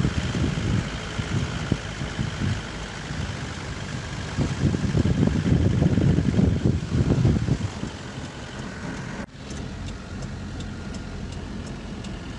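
A vehicle driving along a rough quarry track, its engine running under an uneven low rumble that swells in the middle. About nine seconds in the sound breaks off abruptly and gives way to a steadier, quieter engine hum.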